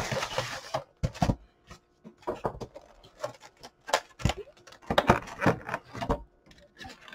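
Cardboard box and clear plastic blister tray being handled and opened: an irregular run of short crinkles, clicks and scrapes.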